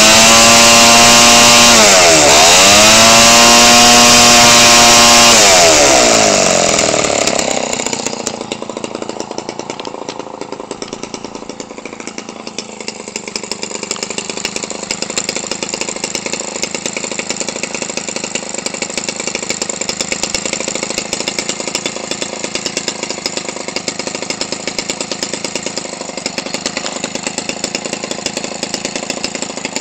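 Homelite 25cc two-stroke gasoline engine with a gutted muffler, swinging an 18x6 propeller. It runs at high revs with a quick dip and recovery about two seconds in, then is throttled back from about six seconds in, settling to a steady idle, a good, strong, healthy idle.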